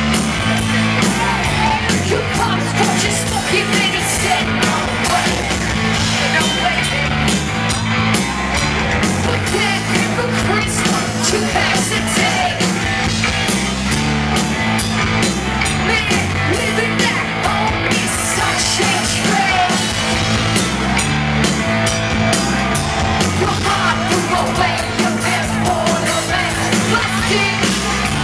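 Live rock band playing loud and steady, with electric guitar and drums over a repeating bass line.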